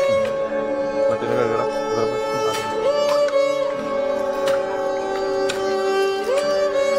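Background instrumental music: long held notes, each sliding up into pitch, with a few light percussive taps.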